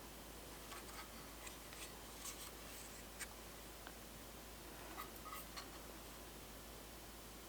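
Faint handling noises: small clicks, taps and light rubbing as an object is turned over and moved about by hand.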